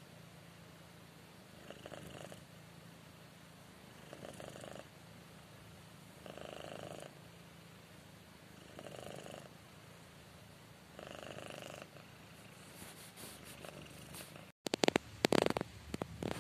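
Domestic tabby cat purring steadily while being stroked, the purr swelling every two seconds or so. Near the end, a few loud crackles and knocks.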